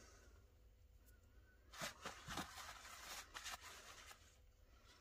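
Faint handling noise: a rubber part being turned in the hands and wiped with a paper towel, with a short run of soft rubs and scrapes from about two seconds in. Otherwise near silence.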